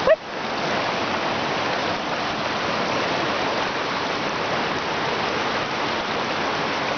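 Forest stream rushing steadily over its bed. A brief short sound rising in pitch cuts in right at the start.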